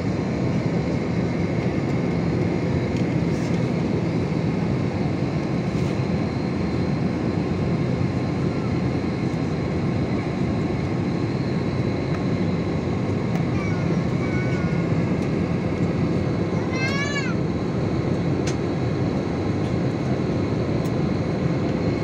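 Steady jet airliner cabin noise from a seat beside the wing: the turbofan engine and rushing airflow, with a faint high whine over it. About three-quarters of the way through comes a brief high-pitched squeal that rises and falls in pitch.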